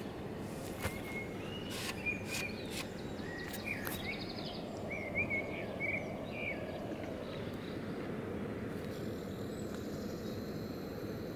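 Outdoor ambience: a steady low rush of background noise, with a small bird chirping in short calls through the first several seconds and a few sharp clicks in the first four seconds.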